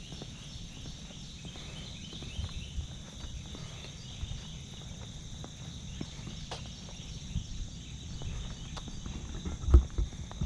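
Footsteps walking on an asphalt road, with a steady high buzzing in the background and a couple of louder knocks near the end.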